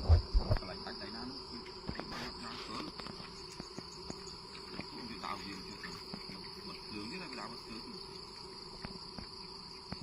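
Steady high-pitched chirring of insects, with a couple of loud low thumps in the first half-second.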